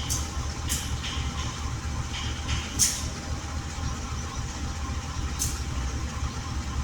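Train at a railway level crossing: a steady low rumble with a few sharp, irregular clanks, the loudest about three seconds in.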